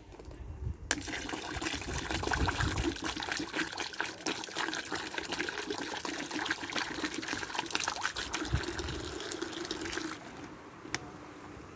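Water poured from a large plastic bottle into a shallow clear plastic bowl on the ground, splashing steadily. It starts about a second in and stops shortly before the end.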